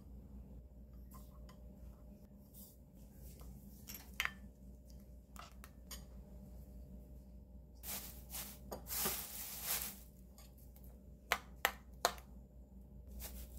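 Quiet kitchen prep: light clinks and taps of utensils on dishes, with a longer stretch of noise about eight to ten seconds in and three sharp clicks shortly after.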